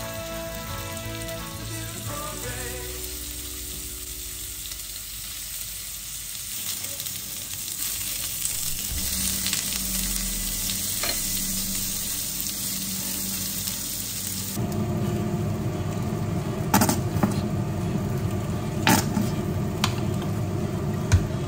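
Köfte patties sizzling on a hot ridged grill pan, an even hiss that takes over as background music fades in the first couple of seconds. About 14 seconds in, the sound changes abruptly to a louder, fuller noise with a few sharp clicks.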